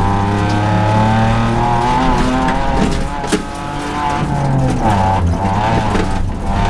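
A rally car's engine heard from inside the cockpit at full effort on a gravel stage, its pitch climbing and then dropping back, twice, as it pulls through the gears. A sharp knock comes about three seconds in.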